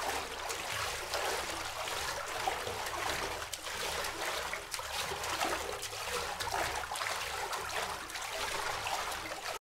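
Water splashing and trickling without a break, with many small splashes throughout.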